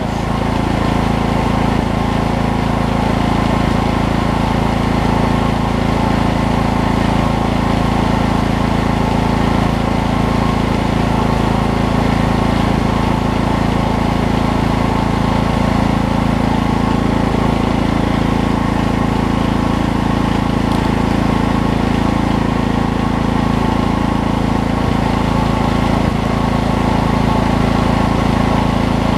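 Briggs & Stratton Vanguard engine on a Coleman Powermate PM 5000 portable generator running at a steady, unchanging speed, quiet for a generator.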